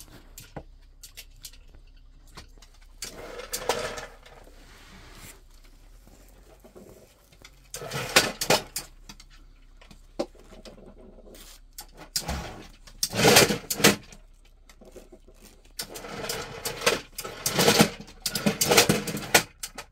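A dog rummaging at a plastic treat-dispensing toy on the floor, pushing it so the toy and the treats inside clatter and rattle. The rattling comes in several bursts of a second or two.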